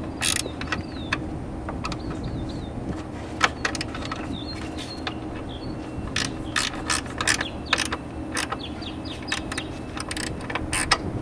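Hand ratchet clicking in short irregular runs as the intake manifold bolts on a Chrysler 3.5 V6 are tightened back down, over a steady background hum.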